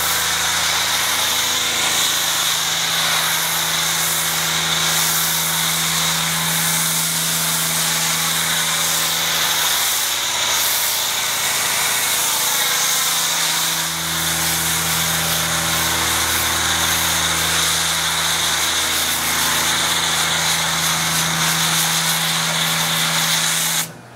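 Pressure washer running with a foam cannon spraying a steady hiss of soap foam, the machine's hum underneath. It cuts off suddenly just before the end.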